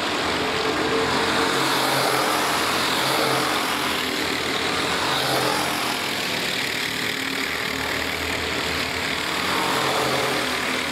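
A pack of racing karts' four-stroke engines running hard through a corner, several engines overlapping and rising and falling in pitch as the karts pass.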